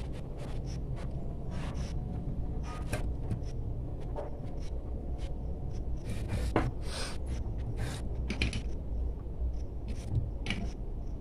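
Scattered metal clicks and scrapes of a hand tool working on the shaft of a small sewing machine motor and its washers, over a steady low hum.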